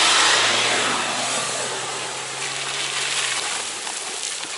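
Dacia Duster driving past close by on a muddy dirt track, its engine and tyres in the mud loudest in the first second and then fading as it pulls away, over a steady low engine hum.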